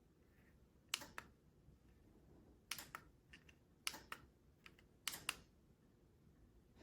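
Sharp clicks in close pairs, four times about a second apart, from the wireless remote-controlled outlet switch set being operated.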